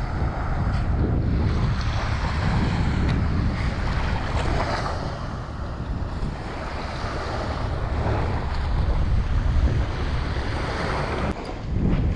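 Wind buffeting the microphone as a steady low rumble, over the hiss of small surf washing on the beach, with a brief click near the end.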